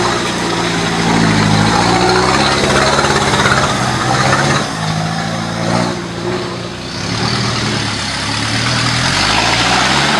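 Off-road 4x4's engine working over the trail, its pitch dropping and climbing as the throttle changes, with a rev rising near the end.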